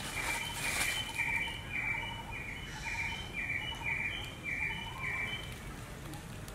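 A bird calling a short, even note about twice a second, some ten times, and stopping about five and a half seconds in, with a scratchy rustle in the first second.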